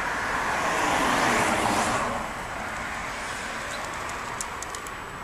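A car passing by: a rushing road noise that swells to its loudest about a second and a half in, then fades. A few faint ticks near the end.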